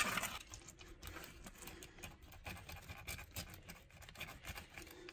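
A whole palometa slaps down onto the cutting board as it is flipped over, a single sharp knock, then faint, uneven scratching as a dull knife scores through the fish's skin along the outline of the fillet.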